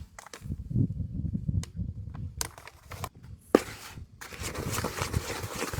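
Dry fishing bait powder being handled and poured out of packets into a mixing bowl: scattered knocks and rustles, then a steady hiss of pouring powder from about four seconds in.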